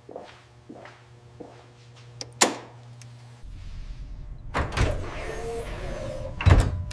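Footsteps on a hard floor, about one every 0.7 seconds, with a sharp click a little over two seconds in. About halfway through, a low machine hum starts up as a water-resistance pressure-test chamber is set running, with two heavy clunks in the second half.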